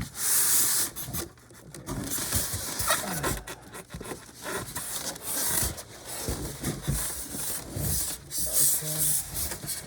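Styrofoam packing and cardboard rubbing and scraping in irregular bursts as a monitor is worked out of its box.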